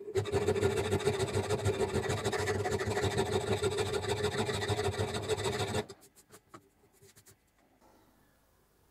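Flat hand file scraping back and forth across the steel head of an antique railroad hammer clamped in a vise, in a steady run of rapid strokes. The filing stops about six seconds in, leaving a few faint clicks.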